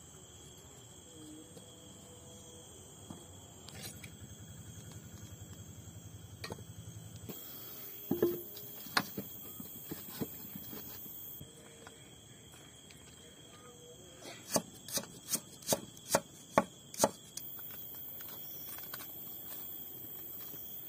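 Knife chopping onion: a few scattered chops, then a quick run of about seven chops, roughly three a second, a while before the end.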